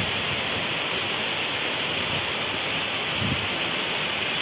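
Steady outdoor hiss, a rushing noise strongest in the upper-middle range, with a faint low thud about three seconds in.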